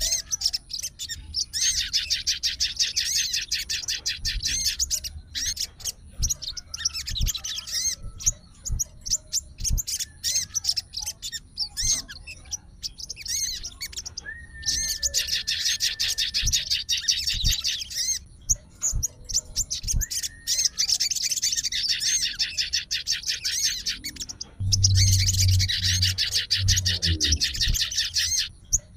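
Sogon songbird singing in long runs of rapid, chattering high notes, four main phrases broken by short pauses with scattered calls between. A low hum sits under the last phrase.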